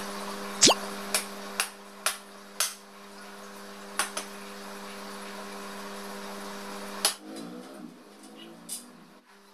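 White powder-coated metal shelf parts knocking and clicking against each other as the square-tube uprights and frame sections are handled and fitted together. It comes as a series of sharp metal knocks, the loudest about half a second in, over a steady hum.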